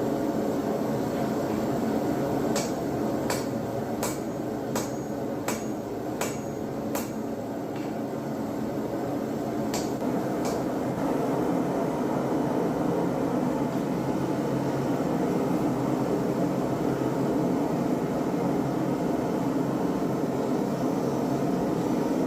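Hammer blows on steel: a run of about seven sharp strikes roughly two-thirds of a second apart, then two more about ten seconds in, over a steady rushing noise.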